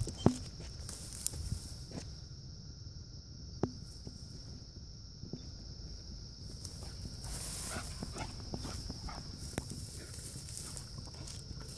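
Scattered footsteps and sharp ticks, with a dog rustling through tall dry grass and a patch of brushing noise partway through, over a steady high-pitched insect drone.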